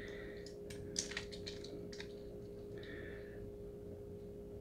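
Faint clicks and light taps from handling small die-cast metal toy buses and a metal pick, several in the first second and a half. A soft rustle follows, over a steady faint hum.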